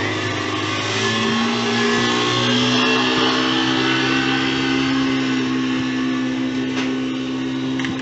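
Outboard motor running under way. Its pitch rises as the throttle opens about one to two and a half seconds in, then holds steady.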